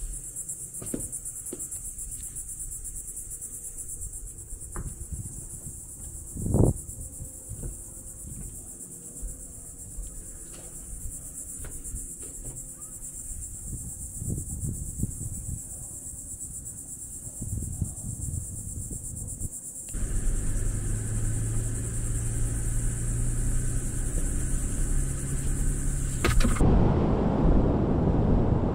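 Steady high-pitched insect chorus, with scattered knocks and one loud thump about a third of the way in. From about two-thirds of the way through, wind rumbles on the microphone. Near the end the insect sound stops and wind and surf noise take over.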